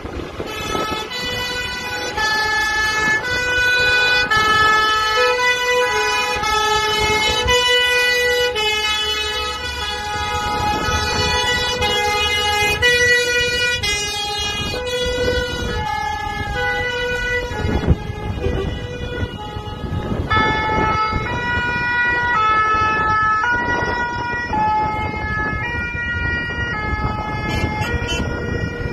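Two-tone sirens of French fire engines sounding their alternating high-low note as the trucks drive slowly past, with the trucks' diesel engines running underneath.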